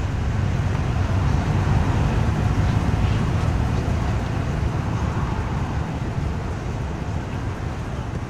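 Snowmobile engines idling, a steady low rumble that swells slightly over the first couple of seconds and then slowly eases off.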